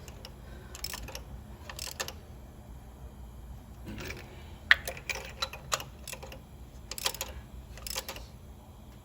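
Hand tools clicking and clinking on metal at irregular intervals, about ten sharp clicks with one louder knock about halfway through, as spark plugs are fitted into the engine.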